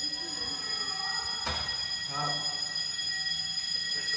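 Building fire alarm sounding one continuous high-pitched tone that holds steady without a break. A single sharp knock sounds about a second and a half in.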